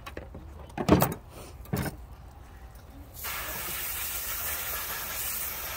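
Two short knocks, then about three seconds in a compressed-air blow gun fed by a compressor lets out a steady hiss of air for almost three seconds.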